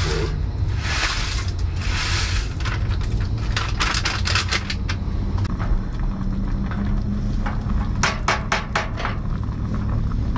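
A spoon stirring and scraping in a small stainless steel saucepan of sauce on a camp stove, with runs of sharp clinks against the pot about three to five seconds in and again around eight seconds in, over a steady low rumble.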